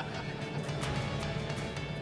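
Background music with a steady beat: a sustained bass line under regular percussive strikes.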